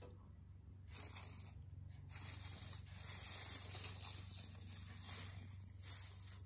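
Dry rustling and crackling of dried flowers being handled, in two stretches, with one sharper crackle near the end.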